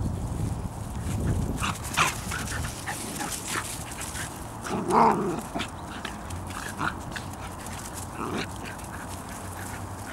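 Bedlington Terrier puppies and an adult play-wrestling, with short dog cries and scuffling sounds. The loudest cry comes about five seconds in.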